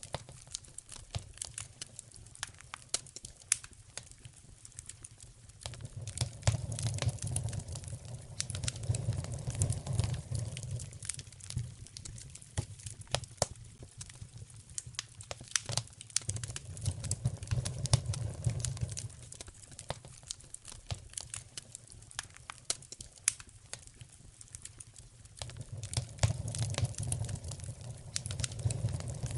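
Wood fire crackling, with many sharp pops and snaps, over a low rumble that swells and fades in slow waves.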